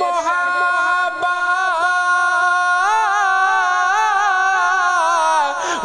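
A male voice singing a devotional Urdu kalam in the naat style, holding one long note with a wavering, ornamented line for about five and a half seconds before breaking off near the end.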